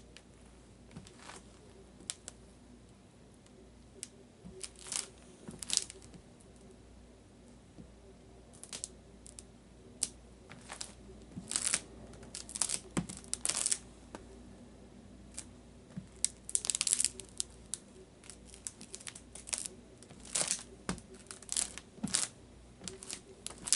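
Nike Air Bakin basketball sneakers shuffling, stepping and turning on a wooden floor: scattered short scuffs, squeaks and creaks of the soles and uppers, some in quick clusters. A faint steady hum lies underneath.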